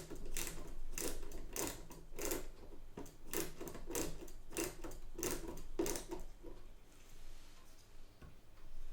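Screwdriver driving a screw into a Facit ESA-0 calculator, turn after turn, a short scraping stroke a little under twice a second. The strokes stop about six and a half seconds in.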